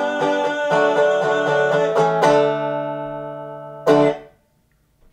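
Metal-bodied resonator guitar playing the closing notes of a song: picked notes, then a chord left ringing and fading, and a last sharp strummed chord about four seconds in that is cut off half a second later.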